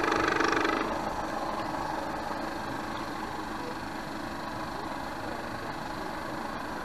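A model boat's small drive motor running steadily, heard through the hull from an on-board camera, as a steady hum with a whine; it is louder for about the first second, then settles.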